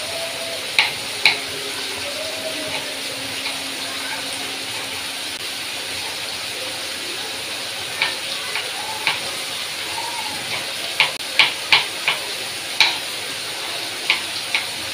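Diced boneless chicken sizzling in oil in a frying pan over a high gas flame: a steady hiss, with sharp clicks now and then that come thicker in the second half.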